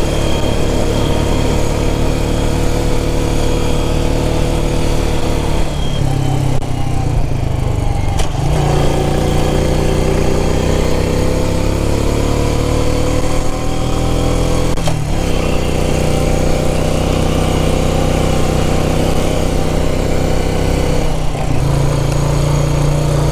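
Quad (ATV) engine running under way. Its note shifts several times, with breaks and changes in pitch about 6, 15 and 21 seconds in.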